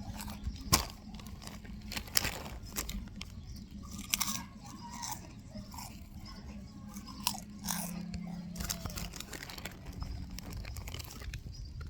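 Close, crunchy chewing: irregular crunches and bites, something crisp being chewed.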